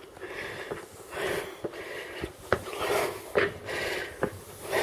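Footsteps knocking on the wooden treads of a steel lookout-tower staircase, a little more than one step a second, with the climber's heavy breathing rising and falling between them.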